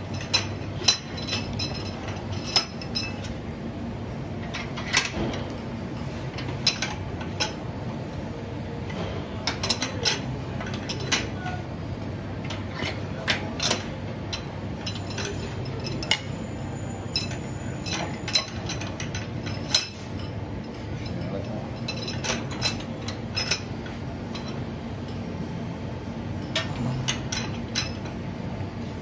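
Sharp metallic taps and clinks at irregular intervals, each ringing briefly, as steel bearings are fitted into an electric scooter's front end, over a steady low hum.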